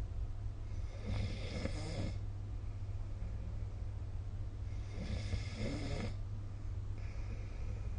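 A person snoring: two snores about four seconds apart, each lasting about a second and a half. A fainter breath comes near the end, all over a steady low hum.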